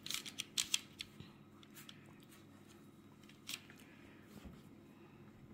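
Short crisp clicks and rustles of raw dough strips being pulled apart and set down on a parchment-lined baking tray. There is a quick cluster in the first second, then a few scattered ones, the last about three and a half seconds in.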